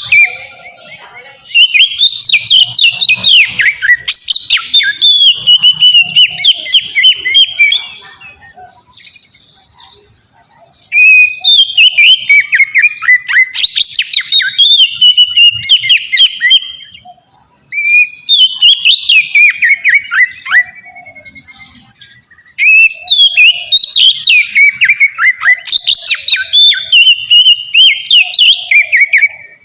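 Oriental magpie-robin (kacer) singing loudly in long bouts of rapid, varied whistled phrases. There are four bouts, with short pauses between them.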